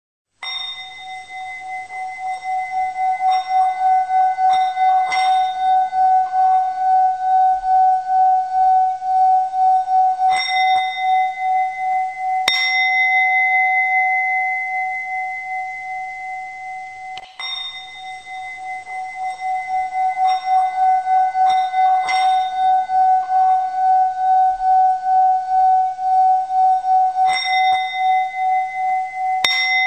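Singing bowl ringing with a steady, throbbing hum and bright overtones, struck again every few seconds to renew the tone. The same passage starts over about halfway through.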